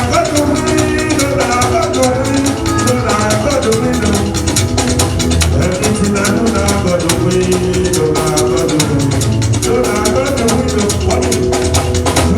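Music with a drum kit and shakers playing a steady, busy beat under held melodic lines.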